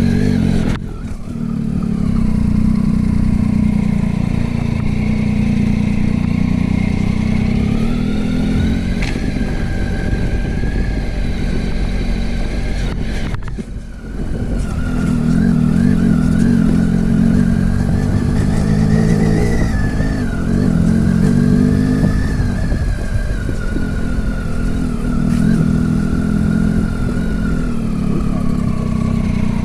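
Motorcycle engine running under way, its pitch slowly rising and falling with the throttle, with two brief dips in engine sound, about a second in and about halfway through.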